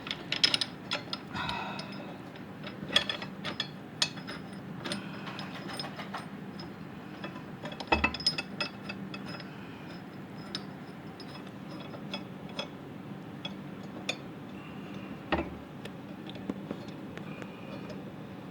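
Scattered metallic clicks and clinks of hand tools and the blade bolt and washer against a lawn mower's steel blade and deck, with a steady low hum underneath.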